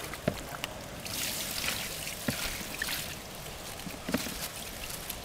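Water poured from a plastic tub over a wet kick net, splashing and trickling through it into a sorting tray, to rinse the stream invertebrates out of the net. The pouring swells about a second in and eases off after a couple of seconds, with a few sharp knocks from handling the tub and tray.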